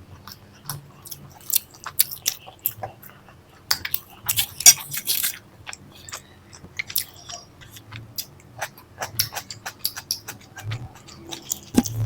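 Close-up chewing and mouth sounds of someone eating paneer curry with flatbread: irregular wet clicks and smacks, with a denser run of them about four to five seconds in.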